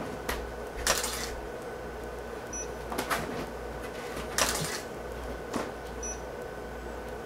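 A camera shutter clicking and studio flashes firing, with a few sharp clicks and two louder pops about three and a half seconds apart. Each pop is followed about a second and a half later by a short high beep, like a strobe signalling it has recharged. A steady electrical hum runs underneath.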